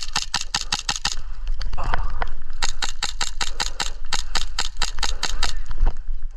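Airsoft guns firing in rapid strings of shots, about nine a second: one string stops about a second in, another runs from about two and a half to five and a half seconds, then only a few scattered shots.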